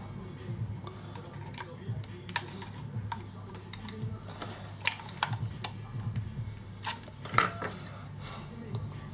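Scattered sharp clicks and taps of tools and plastic parts being handled while taking apart a JBL Flip 4 speaker, the loudest a few seconds in, over quiet background music with a pulsing low beat.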